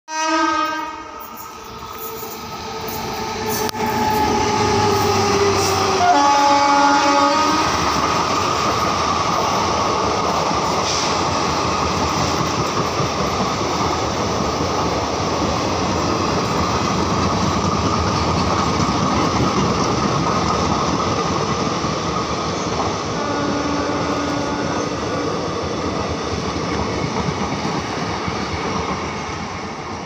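WAP-7 electric locomotive's horn sounding repeatedly as the train comes through at speed: a short blast near the start, a blast falling in pitch a few seconds later, and a louder chord about six seconds in. Then the steady rush and clatter of the passing coaches' wheels on the rails, with one more brief horn note later on.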